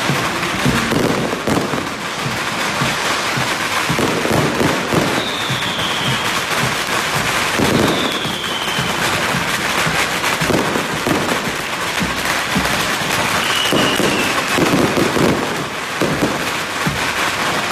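Strings of firecrackers going off continuously, a dense rapid crackle of pops. A few brief high whistles, each falling slightly in pitch, sound over it.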